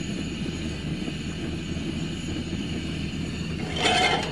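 Coleman propane camp stove burner running with a steady rushing hiss. Near the end a metal frying pan clatters and rings as it is set onto the burner grate.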